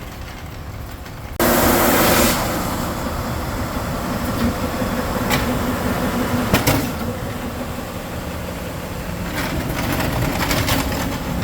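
Large stationary woodworking surfacing machine working a cast epoxy top: a steady machine noise that jumps abruptly louder about a second and a half in, then runs on steadily with a low hum and a few sharp clicks.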